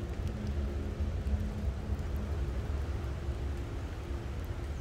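A running engine's steady low rumble, with a faint hum above it that comes and goes.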